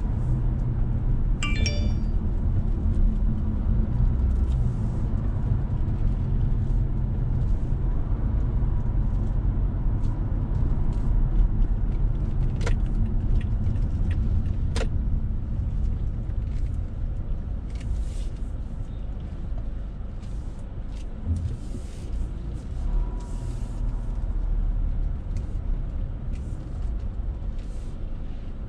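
Steady low rumble of a car's engine and tyres heard from inside the cabin while driving, with a brief jingle near the start and two sharp clicks around halfway. The rumble eases in the last several seconds as the car slows toward a red light.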